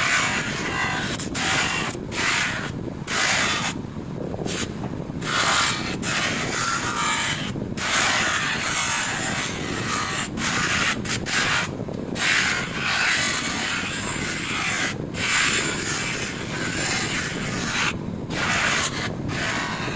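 A power polishing tool runs steadily, its abrasive rubbing against a metal motorcycle footpeg in repeated passes broken by short gaps.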